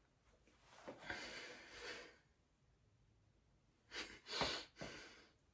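Soft breathing: one long audible breath out about a second in, then a few short breathy puffs through the nose near the end.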